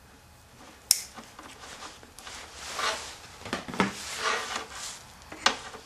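Vinyl electrical tape being pulled off the roll and wrapped around wire ends, with several rasping swishes in the middle. A sharp click comes about a second in and another near the end.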